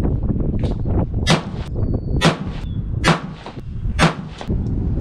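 Four gunshots about a second apart, each with a short echo, over a steady low wind rumble on the microphone.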